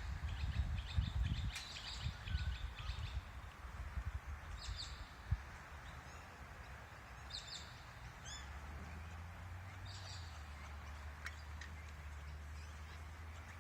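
Outdoor ambience: low, rough bursts of sound in the first three seconds, then small birds chirping now and then, and a steady low hum from about eight seconds in.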